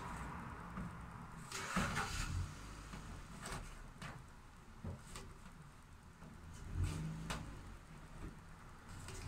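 Hand-held caulking gun pressing out adhesive, with a few scattered clicks and knocks from the trigger and plunger over a steady low rumble.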